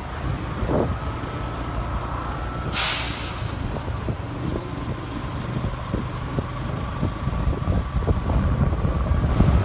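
Large bus engine running with a low rumble. About three seconds in, the air brakes release air with a short, sharp hiss. A faint steady high tone sounds through much of it.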